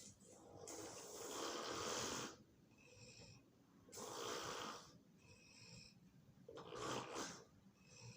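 Snoring in deep sleep: three loud snores about three seconds apart, with softer breaths between them.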